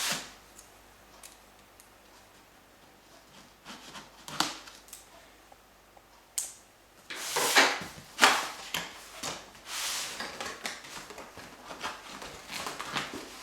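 Cardboard packaging being handled and opened: irregular bursts of rubbing and scraping with a few light knocks, busier from about seven seconds in.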